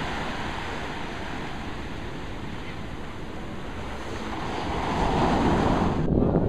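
Ocean surf washing up the beach in a steady rush that swells louder about four seconds in. The sound changes abruptly near the end.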